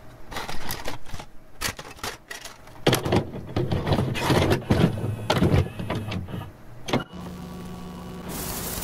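A video cassette recorder loading a tape: an irregular run of mechanical clicks and clunks with a small motor whirring. After about seven seconds this settles into a steady motor hum, and a hiss of tape static starts near the end.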